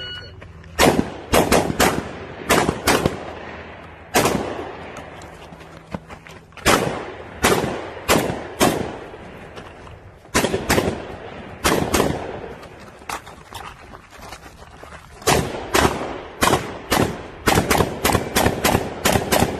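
Rapid gunfire from a shooter engaging targets: shots come in quick pairs and short strings with gaps of one to two seconds between them, each with a short echo, and a fast run of shots near the end.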